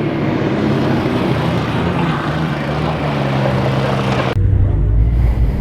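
Car engines running loud and steady. About four seconds in the sound cuts abruptly to a deeper, heavier engine rumble with wind on the microphone.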